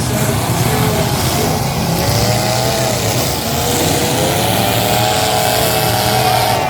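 Several big demolition-derby car engines revving loudly, their pitch rising and falling over and over, with no clear crash impacts.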